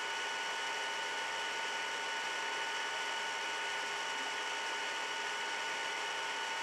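Steady background hiss from the recording, with a few faint constant high whining tones running through it and no knocks or other sudden sounds.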